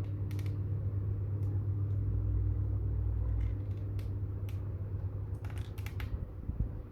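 Scattered small clicks and taps from a computer keyboard being handled, with a cluster of quick clicks near the end, over a steady low hum.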